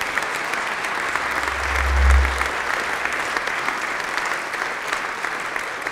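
Audience applauding steadily in a large hall, with a deep low note swelling and fading about two seconds in.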